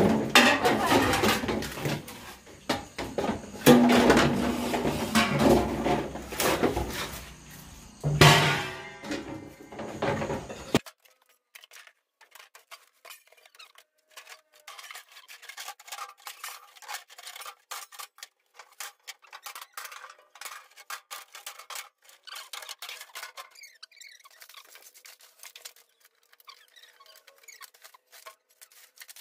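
A metal snake hook knocking and scraping against steel pans, bricks and clutter, loud and irregular for about ten seconds. Then the sound suddenly thins to faint, rapid clicking and rustling as dry coconut husks and clutter are moved.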